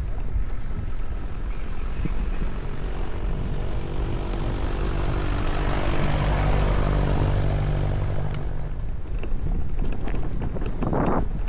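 An engine passing by, getting louder to a peak a little past the middle and then fading, over steady wind noise on the microphone.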